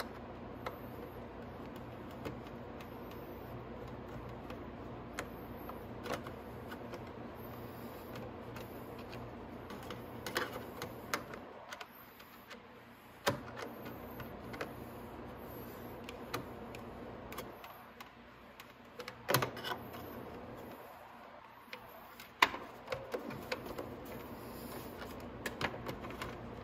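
Scattered clicks and taps of hands and a small screwdriver working at a screw under a plastic motorcycle side fairing, over a steady low hum that drops out a few times.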